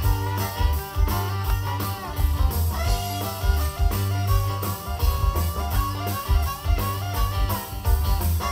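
Live bluegrass band playing an instrumental passage: fiddle, banjo and electric guitar over electric bass and drums keeping a steady beat.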